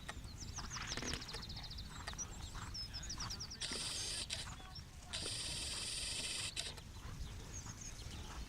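Small birds chirping, with a quick high trill about a second in, and two longer high buzzes in the middle. A steady low rumble runs underneath.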